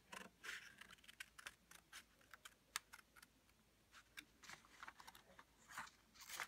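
Scissors snipping through a sheet of paper: a string of faint, irregular short clicks as the blades close, with the paper rustling between cuts.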